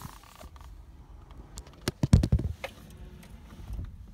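Handling noise from a phone being fumbled and pressed against clothing: scattered clicks and rubbing, with a cluster of heavy thumps about two seconds in.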